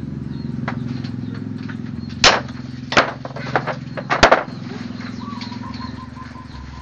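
Sharp hammer strikes on metal, about six of them in quick irregular succession from two to four and a half seconds in, over a steady low hum.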